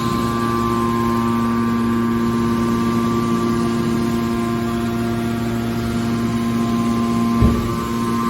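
Hydraulic metal press baler running, its pump and motor giving a loud, steady hum with several fixed tones, and a single dull thump about seven and a half seconds in.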